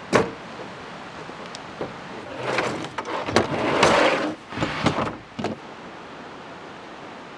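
A plastic folding table clicks shut, then slides and scrapes into a storage compartment under a truck camper, with several knocks, the loudest scraping about four seconds in. A river runs steadily underneath.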